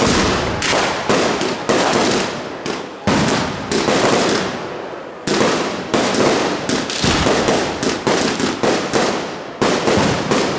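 Fireworks display: rapid, overlapping bangs of exploding aerial shells, with reports every fraction of a second and a rolling rumble between them.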